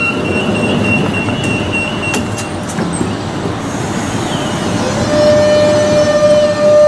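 Renfe series 447 electric multiple unit moving off along the platform, with a rumble of wheels and running gear. About five seconds in, a steady electric whine from its traction motors sets in, rising briefly and then holding as the train gets louder.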